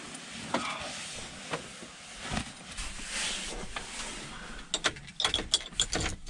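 Rustling and scattered clicks of someone moving about inside a van, ending in a quick run of sharp clicks and rattles about five seconds in.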